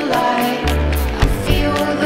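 Background music with a drum beat and a sustained melody.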